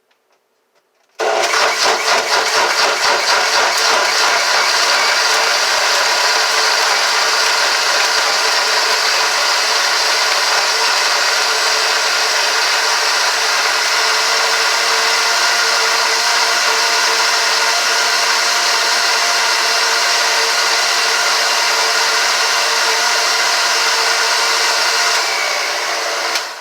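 A kitchen blender's motor switches on about a second in and runs steadily at full speed, chopping banana peels and food scraps in water. It winds down near the end.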